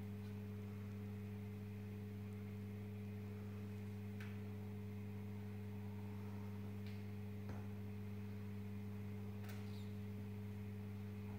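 Steady low electrical hum, with a few faint soft clicks from pink slime being stretched and handled.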